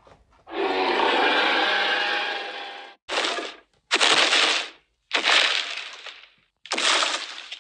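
A person's voice imitating a dinosaur for a toy carnivore: one long harsh roar lasting about two and a half seconds, then four shorter roars about a second apart.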